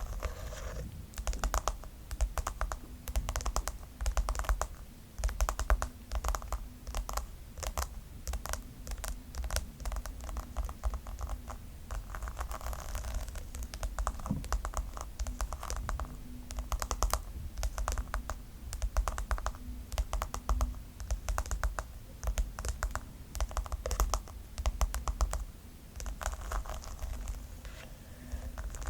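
Rapid tapping on a pink brush, in quick flurries of sharp clicks with short pauses between them.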